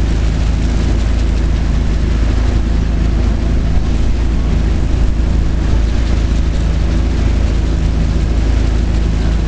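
Helicopters running at idle while parked: a steady, unchanging engine and rotor drone with a constant low hum.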